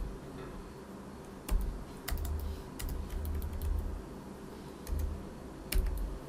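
Computer keyboard typing: a few separate keystrokes with pauses between them, along with dull low thuds.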